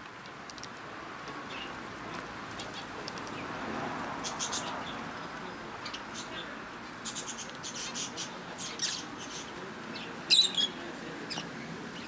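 Mixed small aviary birds (canaries, lovebirds, parakeets, zebra finches) giving short, high chirps and squawks in scattered clusters. The loudest cluster comes a little after ten seconds in, over a steady background rumble.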